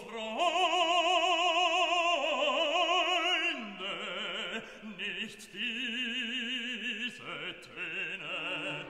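Operatic singing with a wide vibrato on long held notes, laid over the clip as music; a couple of brief clicks sound about five and seven seconds in.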